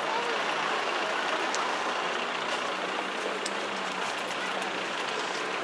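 Steady noise of motor vehicles at a level crossing, with a low engine hum coming in about two seconds in.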